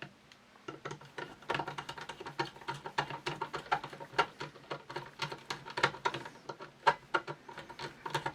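Screw being driven into a Berthier rifle's fittings with a screwdriver: a quick, uneven run of small metallic clicks and scrapes.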